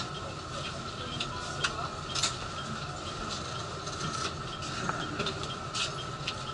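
Steady hum inside a stopped JR West 227-series electric train car, a low rumble with a thin held tone from the car's running equipment, with a few light clicks and knocks scattered through it, the sharpest about two seconds in.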